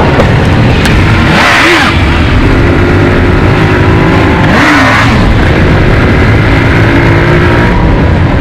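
Motorcycle engines running while riding along, revving up and back down twice, with heavy wind rumble on the microphone.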